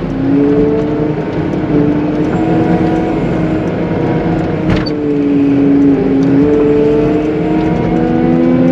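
CAT 906M compact wheel loader's diesel engine running under load while plowing wet slush, its pitch stepping up and down as the machine works. A sharp click a little under halfway through.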